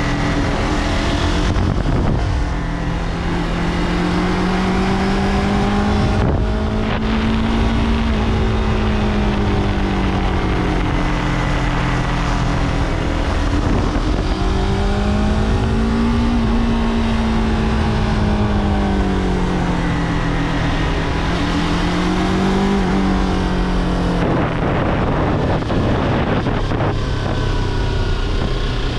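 Yamaha R3's parallel-twin engine running under a rider's throttle, its pitch rising and falling several times as it pulls and eases off through a string of curves.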